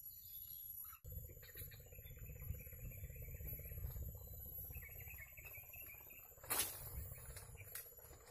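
Faint chirping of small animals over a low rumble on the microphone, with one sharp click about six and a half seconds in.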